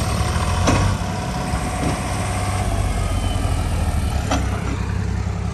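Tractor diesel engine running steadily, with a couple of short knocks about a second in and again past the middle.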